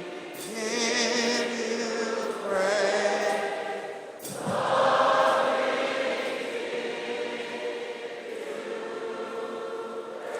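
A choir and congregation singing a slow worship song in three phrases, the last note held for several seconds.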